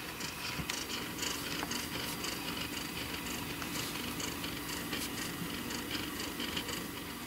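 Brown tabby-and-white domestic cat purring steadily, close to the microphone.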